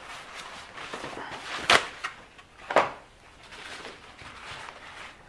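Handling noises on a work surface: light rustling, with two sharp knocks about a second apart near the middle.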